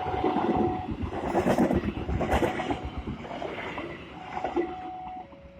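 Commuter train running on the rails: a dense rumbling clatter, with a steady whine near the start and again near the end that steps down in pitch as the sound eases off.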